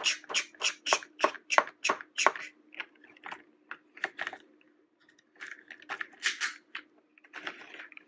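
Hard plastic clicking and tapping as a toy construction truck's drill-and-jackhammer arm is handled. A quick run of sharp clicks comes in the first two and a half seconds, then scattered clicks, with a short rustling scrape about six seconds in.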